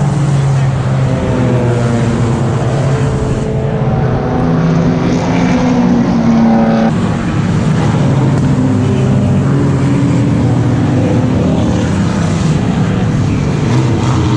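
Race car engines running at speed on track: a steady, loud engine drone whose pitch rises and falls.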